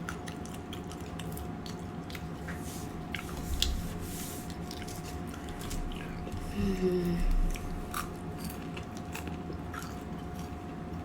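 A person eating close to the microphone: chewing with small wet mouth clicks, a short hiss about four seconds in, and a brief low vocal sound between six and seven and a half seconds in.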